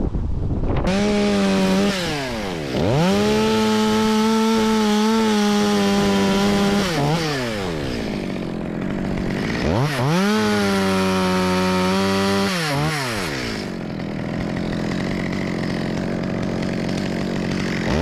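Top-handle chainsaw cutting through eucalyptus wood on the tree's stem. It revs up to full speed twice, once for about five seconds and again for about three seconds, and the engine note drops back between and after the two cuts.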